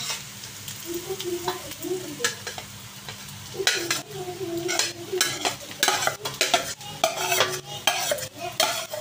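A perforated metal spoon scraping and clinking against a plate and an aluminium pot as a saucy vegetable mixture is spooned onto rice. The scrapes and clinks are sparse at first and come thick and fast from about three and a half seconds in.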